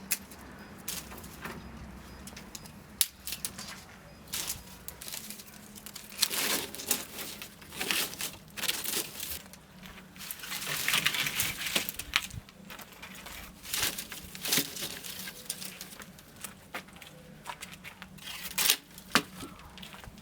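Hands handling things during food preparation: crinkling and rustling, with scattered sharp knocks and clicks.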